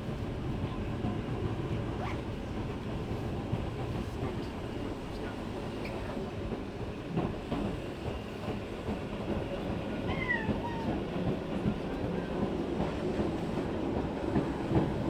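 An Eizan Electric Railway (Eiden) electric train running, a steady low rumble with scattered clicks from the wheels and rails. A brief high tone that rises and falls comes about ten seconds in.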